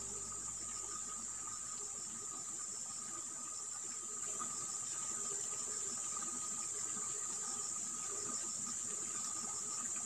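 Insect chorus: a steady, high-pitched shrill trill, with a fainter, lower steady tone beneath it.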